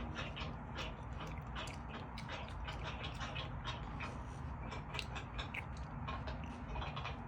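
Chewing and biting of crisp apple: irregular short crunchy clicks, several a second, over a steady low background hum.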